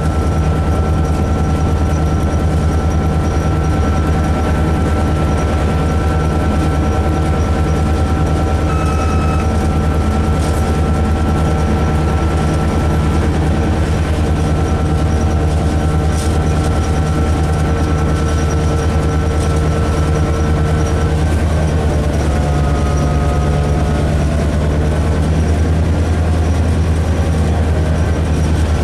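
Diesel locomotive engine running steadily, heard from inside the driver's cab: a deep drone with a higher whine over it that shifts in pitch about twenty seconds in.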